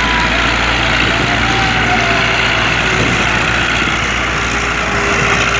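Diesel engines of a Massey Ferguson 240 tractor and a wheel loader running steadily, a continuous low engine sound at an even level.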